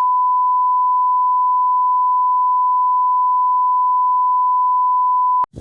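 A single electronic beep: one pure, steady tone held for over five seconds that cuts off abruptly near the end, like a test tone.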